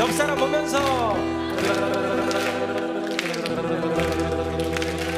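Singing accompanied by two strummed acoustic guitars, with a long sung note gliding in pitch during the first second, then strummed chords.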